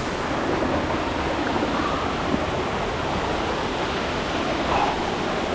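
Steady rushing of water, an even noise with no clear individual events.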